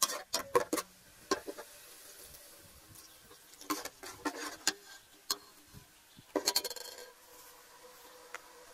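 Metal ladle scraping and clinking against the inside of an aluminium pot while stirring, in bursts of clicks and scrapes: several in the first second, more around four seconds in and again near seven seconds, then it settles.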